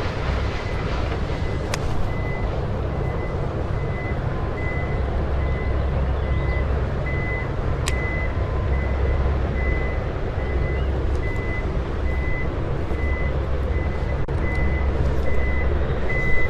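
A construction vehicle's reversing alarm sounds a steady run of evenly spaced high beeps over a low, steady rumble. Two sharp clicks are heard in the first half.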